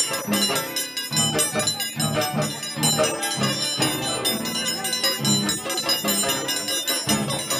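Live Andean band music with a steady, regular beat and many sustained instrument tones.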